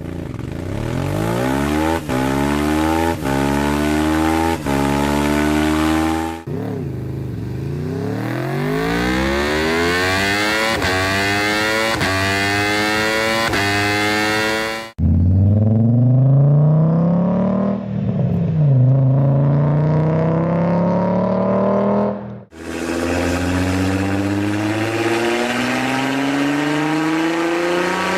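A run of different engines accelerating hard, each climbing in pitch with brief dips at gear changes. The sound cuts abruptly to a different engine about six, fifteen and twenty-two seconds in.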